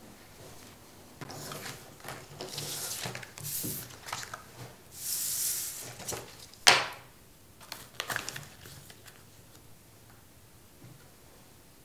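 Small objects being handled on a wooden table: a few seconds of rustling and light scraping, then one sharp knock a little past halfway, followed by a few softer clicks before it goes quiet.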